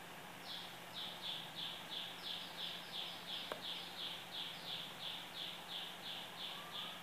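A bird calling: a rapid run of short chirps, about three a second, each dropping slightly in pitch. There is a single sharp click about halfway through, over a faint low steady hum.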